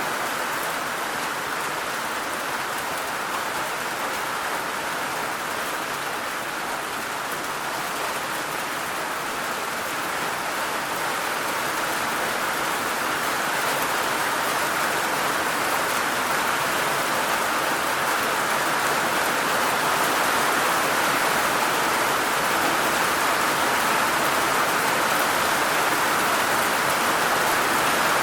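Heavy rain falling in a steady hiss, growing a little louder over the second half.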